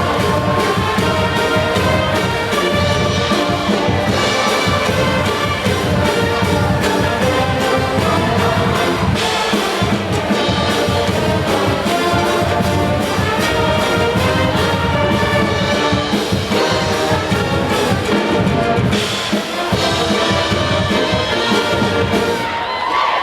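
A band with brass (trumpets and trombones) playing the school song at full volume over a steady beat.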